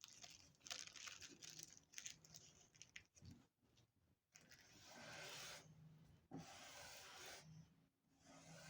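Faint rustling and crinkling of a sheet of tissue paper being folded by hand, in several short stretches.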